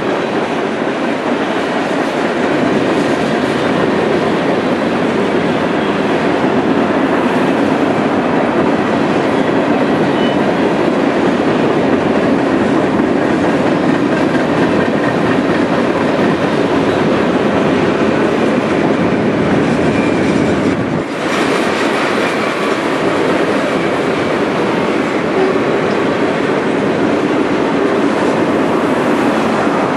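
Norfolk Southern mixed freight train's cars rolling fast past a grade crossing: a loud, steady noise of steel wheels on the rails that briefly dips about two-thirds of the way through.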